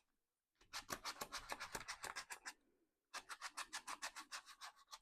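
Fast back-and-forth rubbing on glued paper, pressing a paper hinge down so it sticks: two runs of quick strokes, about eight or nine a second, with a short pause between them.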